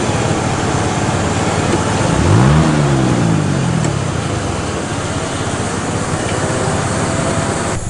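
Off-road 4x4's engine running under load as the vehicle is winched up a muddy track, over a steady loud rushing noise. About two seconds in, the engine revs up sharply and then drops back over a second or two. The sound cuts off abruptly near the end.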